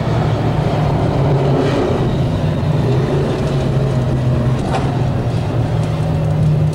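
Vintage modified race cars' engines running at speed around an oval track, a steady loud drone with the pitch holding fairly even.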